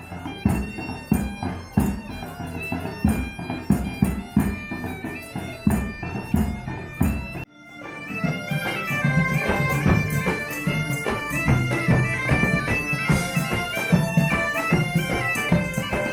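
Bagpipes playing a tune over a steady drone, with a regular drumbeat underneath. The sound cuts off abruptly about seven and a half seconds in and starts again straight after.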